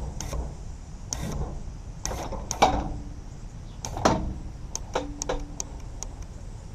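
Irregular metallic clicks and knocks from a QuickJack lift and the fuel-tank cage on it as it is lowered, the sharpest knock about two and a half seconds in. Two short steady hums sound among the clicks.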